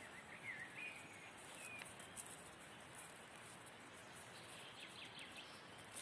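Near silence of outdoor ambience, with a few faint high chirps, which may be distant birds, in the first two seconds and a few faint ticks about five seconds in.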